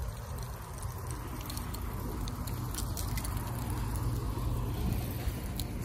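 Footsteps and light rustling through grass while walking, with a few faint clicks, over a low steady rumble.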